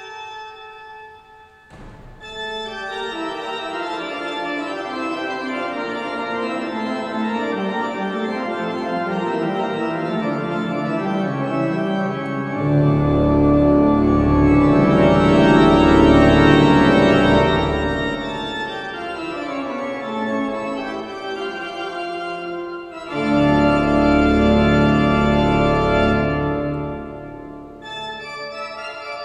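Pipe organ playing sustained chords that build gradually. Deep pedal bass comes in about halfway for a loud full passage, breaks off briefly, then returns for another loud chord before dropping back to a quieter passage near the end.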